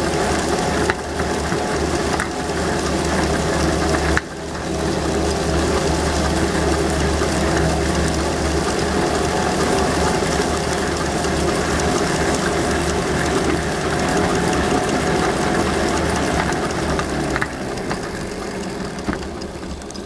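Pedal-driven grain dehuller running steadily, an exercise-bike flywheel turning rubber hulling discs with wheat grains passing between them, making a steady mechanical hum. The hum dies down over the last few seconds.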